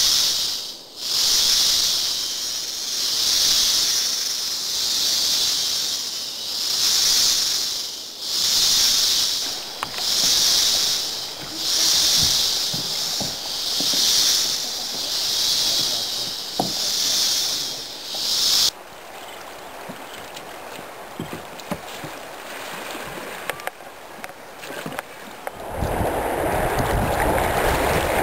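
Jungle insect chorus, a high buzzing that swells and fades about every two seconds and cuts off abruptly about two-thirds of the way through. After a quieter stretch with a few clicks, a loud rush of water and wind comes in near the end as a kayak is paddled across choppy river water.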